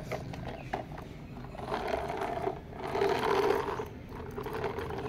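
Plastic toy truck's wheel gearing whirring as its wheels are spun by hand, loudest from about two to four seconds in.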